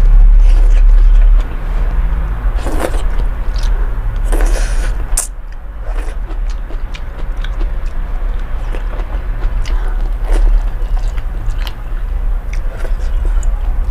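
Close-miked mukbang eating of instant noodles: two long slurps of noodles within the first five seconds, then wet chewing with many short smacks and clicks. A steady low hum sits underneath throughout.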